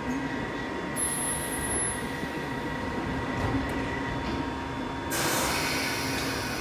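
London Underground 1973 Stock tube train standing at the platform with its doors closing, equipment humming steadily. About five seconds in, a loud hiss begins as the train readies to pull out.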